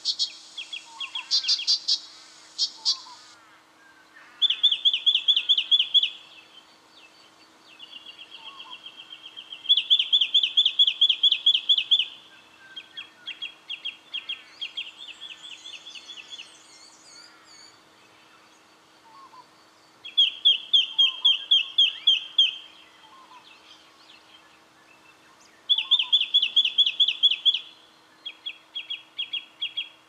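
Brown treecreeper calling: runs of rapid, sharp, evenly repeated notes, each run lasting about two seconds, given again and again with short pauses between, some runs louder and some softer.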